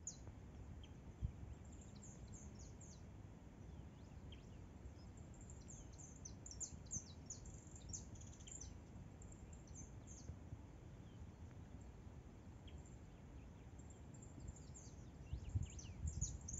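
Small birds chirping faintly: many short, high chirps, sparse at first and more frequent after about five seconds, over a low background rumble.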